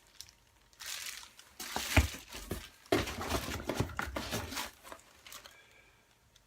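Packaging crinkling and rustling in several spells as items are handled and unwrapped, with a sharp knock about two seconds in.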